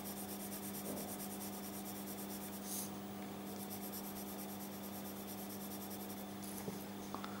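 Pencil lead scratching on paper while lines are drawn, over a steady hum.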